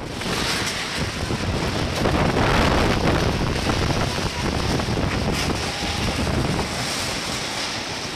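Tornado-force wind blasting across the phone's microphone: a dense, continuous rush of wind noise, strongest about two to three seconds in.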